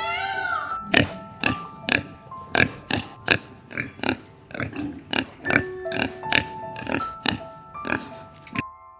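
Background music with held keyboard-like notes, over which an animal gives one drawn-out, rising-and-falling call and then a rapid run of short grunt-like calls, about two a second, that stop shortly before the end.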